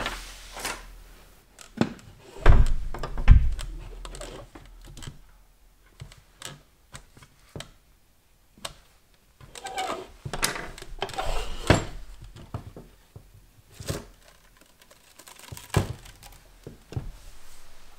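Plastic knocks, clicks and scraping as a headlight lens is pried away from its housing while the oven-softened sealant is still warm, with two heavier thumps about two and a half and three seconds in.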